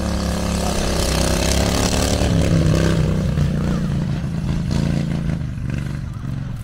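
Motorcycle engine running as it rides past, growing louder to a peak about two and a half seconds in, then fading as it moves away.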